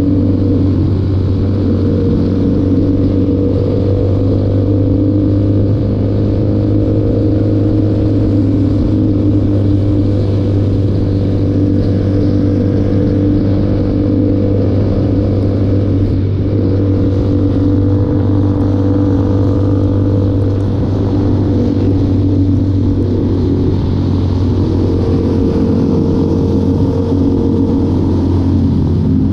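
Motorcycle engine running at a steady cruising speed while riding, its note holding nearly constant in pitch.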